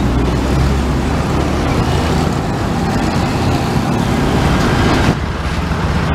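Diesel coach engine running as the bus pulls past close by, with traffic noise around it. About five seconds in, the sound cuts abruptly to steadier street traffic with an engine humming.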